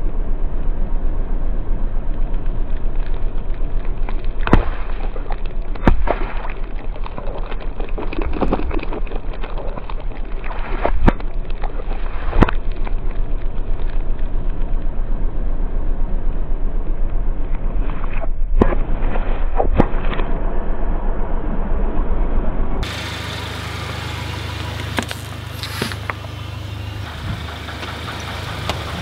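Car tyre squashing plastic drink bottles: a muffled, dense crackling with sharp cracks and pops every few seconds. About three-quarters of the way through it switches to a car engine idling, a steady low hum.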